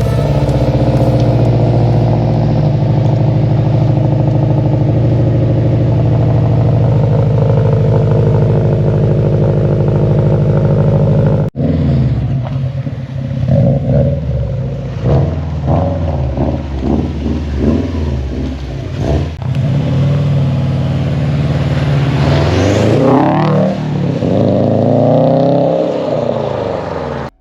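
Car engine running at a steady speed; after an abrupt cut about eleven seconds in, it is revved in a series of quick throttle blips, with one longer rev that climbs and falls near the end.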